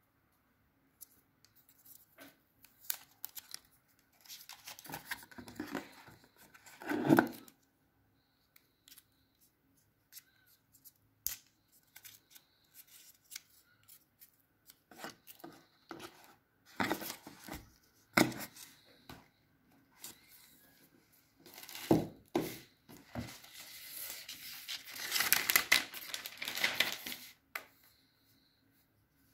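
Unboxing handling sounds: scattered rustling and tearing of paper and plastic packaging, with small clicks and knocks of the plastic power adapter and cable against the cardboard box tray. A longer spell of rustling comes near the end.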